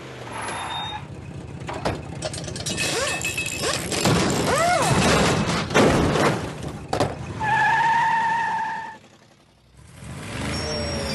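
Cartoon car sound effects: vehicle engine noise and metal clattering, with pitch glides about four seconds in and a steady horn-like tone lasting about a second and a half later on.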